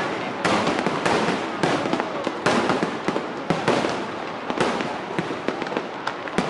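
Fireworks display: loud bangs about once a second over a dense, continuous crackling.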